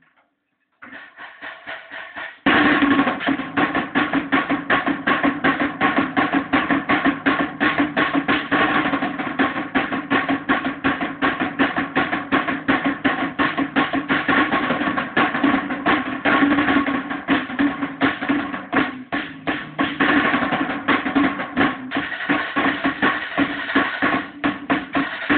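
Drum kit and guitar playing together. Quieter playing begins about a second in; about two and a half seconds in, the full band comes in loud, with fast, dense drum hits over sustained guitar notes.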